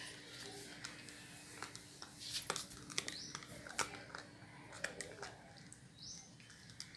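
Puppy chewing a plastic toothbrush: scattered sharp clicks and cracks of teeth biting on the plastic, thickest from about two to five seconds in.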